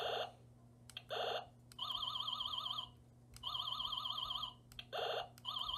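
Electronic laser sound effects from a Mattel Ultimate Space Ranger Buzz Lightyear figure, played through its small built-in speaker: three short buzzy zaps and three warbling tones about a second long each, alternating.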